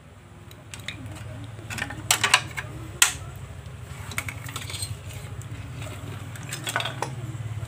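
Clicks, knocks and light clatter from an old CRT television's circuit board and wiring being handled and lifted out of the chassis. There is a quick burst of clicks about two seconds in and a sharp knock about a second later, over a steady low hum.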